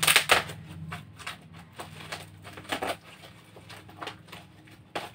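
Plastic wrapping on a bale of secondhand clothes crinkling and rustling as it is pulled open by hand, in quick irregular crackles that are loudest right at the start.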